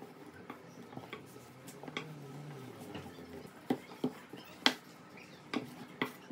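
Wooden rolling pin rolling out dough on a silicone baking mat: a soft rolling sound, then several sharp light knocks in the second half as the pin is worked back and forth.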